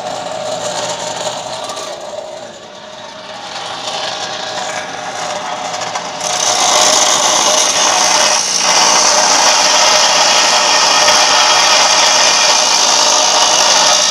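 Homemade abrasive cut-off saw, its disc driven by an external electric motor, spinning free, then about six seconds in biting into a metal pipe with a loud, high grinding hiss that holds on with a brief dip a couple of seconds later. The cut loads the motor, its current draw climbing to about 12 amps.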